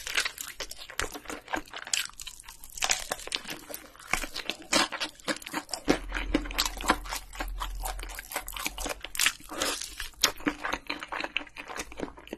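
Close-miked crunching and chewing of crispy fried chicken dipped in cheese sauce: dense crackles of the breaded crust breaking, with wet chewing between bites.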